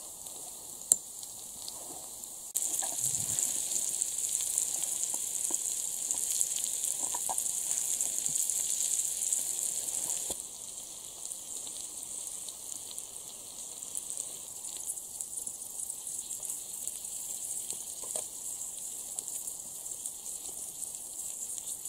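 Pieces of rabbit meat sizzling on a grill over a campfire: a steady hiss that gets louder about two and a half seconds in and drops back about ten seconds in, with a few faint clicks.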